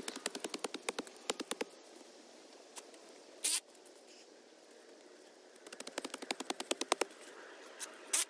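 Cordless power drill working on the turf tee pad: two runs of rapid clicking rattle, about a dozen clicks a second, and two short, sharp bursts, one midway and one near the end.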